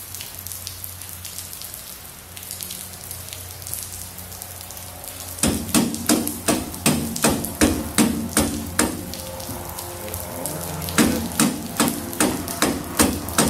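Small mallet tapping an engine-mount bolt home through the Lycoming's Dynafocal mount, sharp ringing blows about three a second. The blows start about five and a half seconds in, stop briefly, then resume near the end.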